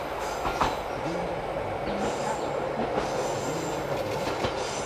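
Akechi Railway single-car diesel railcar approaching along the line: a steady running rumble with wheel-on-rail noise and a few sharp clicks.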